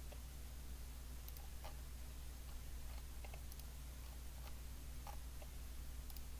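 Faint, scattered single computer mouse clicks, a dozen or so at irregular intervals, over a steady low hum.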